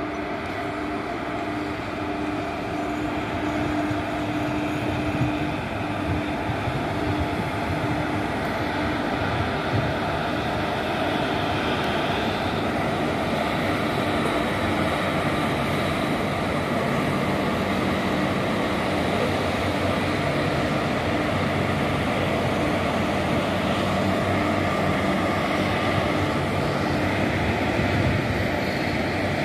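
Freight train hauled by WAG-5 electric locomotives passing close by: a steady rumble of wheels on rail with a low electrical hum from the locomotives. It grows louder over the first few seconds and then holds.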